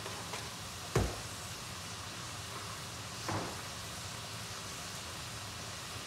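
Sauce with ground cumin sizzling steadily in a wok over a gas burner, with a sharp knock about a second in and a softer one a little after three seconds.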